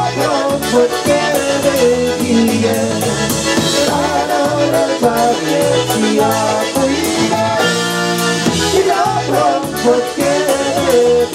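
Live band music: accordion over drum kit and electric bass guitar with a steady beat, and a man singing into the microphone.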